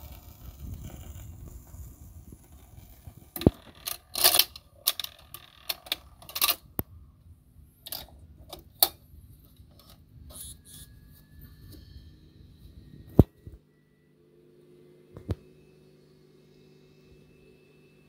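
Low rumble from the record player, then a run of irregular sharp clicks and knocks from a vintage record changer and the handling around it, ending with a faint steady hum and one last click.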